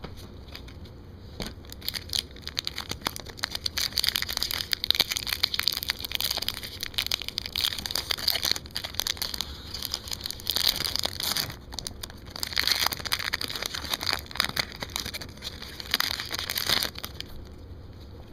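Upper Deck hockey card pack wrapper being crinkled and crumpled as a pack is opened. It makes a dense, irregular run of sharp crackles that stops shortly before the end.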